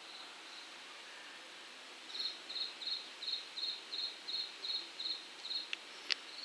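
An insect chirping in a regular series of short high pulses, about three a second, starting about two seconds in over a faint background hiss; two sharp clicks near the end.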